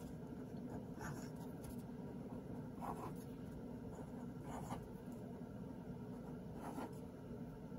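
Fine-tip ink pen scratching on paper in short, quick strokes as small numbers are written, with a steady low hum beneath.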